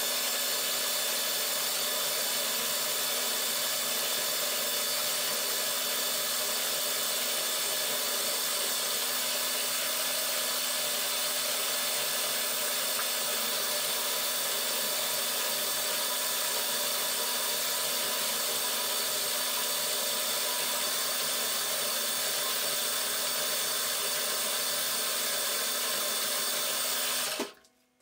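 Milling machine spindle running steadily, a whine of several fixed tones over a high hiss, while a small drill bores tapping holes for M2 threads in an aluminium plate. It cuts off suddenly near the end.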